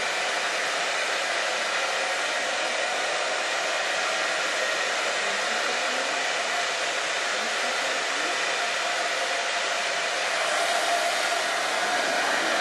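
Hair dryer blowing steadily, a constant white-noise hiss, used as white noise to calm a baby. It gets slightly louder near the end.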